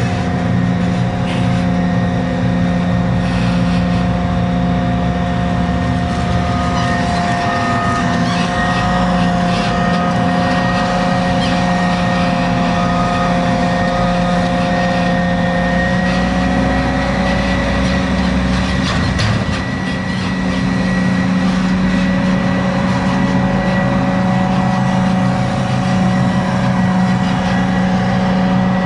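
New Holland FR 600 forage harvester chopping maize: engine and chopping drum running steadily under load, with a constant whine over a low drone.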